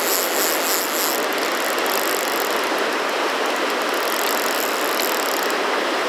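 Fast river water running over rocks in rapids, a steady, even wash.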